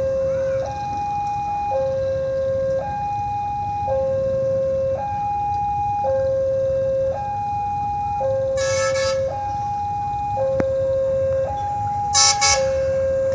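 Railway level-crossing alarm sounding a steady two-tone chime, a lower and a higher note alternating about once a second. An approaching airport diesel multiple unit sounds its horn in two short blasts, one just past halfway and one near the end, over a low rumble.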